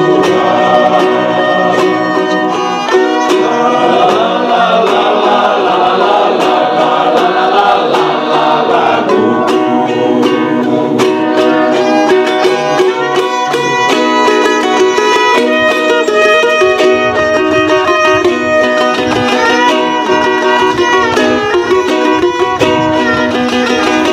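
Violin playing the melody over two small strummed ukulele-type lutes in a steady rhythm: an instrumental interlude in a hymn. For about the first nine seconds a men's choir is still holding its chord under the strings.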